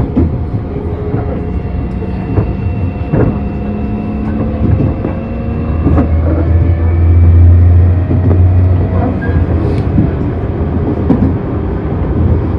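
Tobu 30000-series electric train with permanent-magnet synchronous traction motors running, heard from inside the car: a motor whine of several tones that drift slowly in pitch over a steady rumble, with repeated clicks from the wheels and a low hum that swells in the middle.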